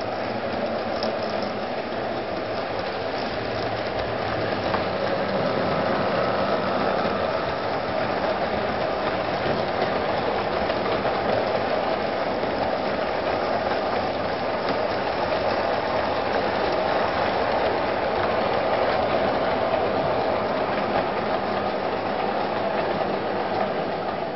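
Electric model train running on its track: a steady whir of the locomotive's motor and wheels on the rails as it hauls its coaches round the layout, growing a little louder as it passes close by and easing off near the end.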